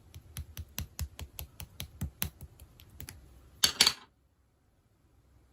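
A quick, even run of sharp clicks, about five a second, like typing on a keyboard, ending in two louder clicks about three and a half seconds in, after which the sound stops.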